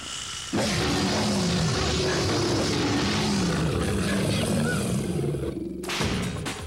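A loud, noisy roar with a low pitch that swells and wavers in repeated arcs. It cuts off suddenly about six seconds in, where music with sharp beats takes over.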